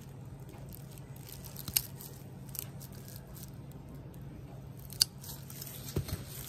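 Scissors snipping through the roots and stem of a Monstera standleyana albo: a few short crunchy cuts, the sharpest about two seconds in and at five seconds, over a steady low hum.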